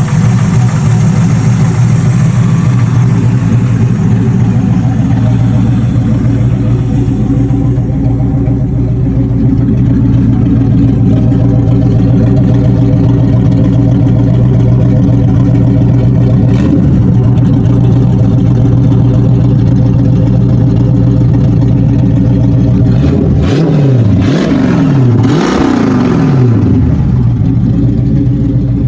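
1991 Ford Mustang's 302 V8 running at a steady idle, then revved several times in quick succession near the end before settling back to idle.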